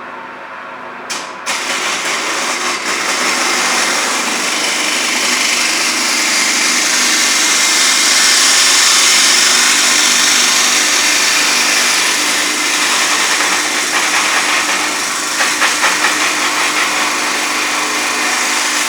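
Homemade pendulum-type cut-off saw running with its disc cutting through a workpiece: a steady motor hum under a loud grinding hiss. The hiss starts sharply about a second in and swells toward the middle.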